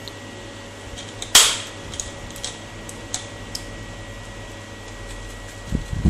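A sharp click about a second in, then a few light ticks, as small screws and a screwdriver are handled against a laptop's plastic bottom panel, with a couple of low knocks near the end as the screwdriver goes to a cover screw. A steady fan hum runs underneath.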